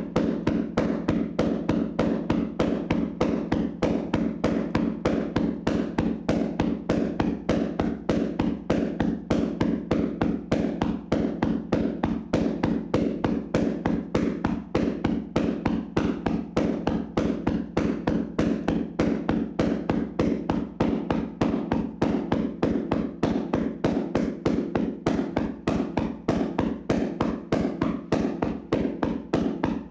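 Hands slapping and tapping on a person's body in a vigorous percussive massage: a steady, unbroken rhythm of about four slaps a second.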